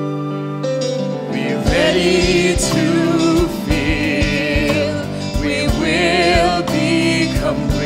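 Musical-theatre song accompaniment played live: held chords, then a steady drum beat comes in about a second and a half in, with a wavering melody over it.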